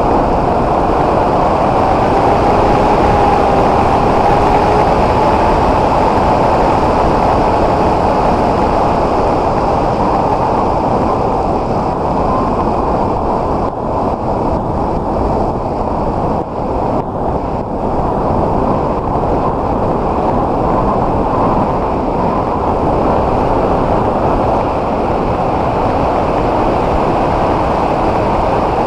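Steady wind rush over the onboard camera's microphone on the S800 model aircraft in flight, mixed with the hum of its electric motor and propeller. A faint whine wavers in pitch in the first few seconds, and the sound dips briefly a few times in the middle.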